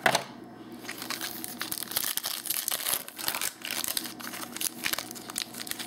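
Foil wrapper of a trading card pack crinkling and tearing as it is opened by hand: a run of irregular crackles.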